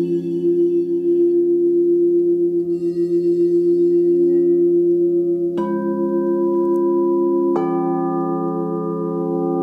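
Quartz crystal singing bowls ringing together in sustained, overlapping tones with a slow pulsing beat. Two more bowls are struck with a wand, about five and a half and seven and a half seconds in, each adding a new higher tone to the chord.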